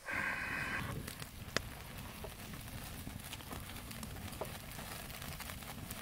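Open cooking fire crackling over a steady hiss, with a few sharp pops, as pork roasts over it.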